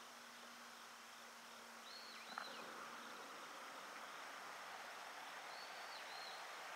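Faint outdoor quiet with a flying insect's steady buzz that stops about two and a half seconds in, a single click at about the same moment, and a few faint high whistles.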